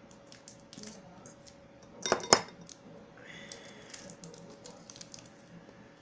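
Light clicks and rustling from handling a makeup brush while pulling it out of a cosmetic bag, with a sharp clatter about two seconds in as the loudest moment.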